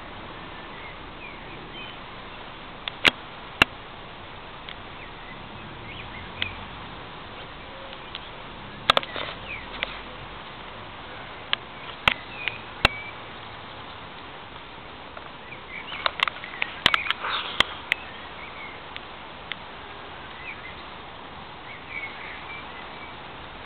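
Outdoor ambience: a steady hiss with faint short bird chirps and scattered sharp clicks, bunched together about two-thirds of the way through.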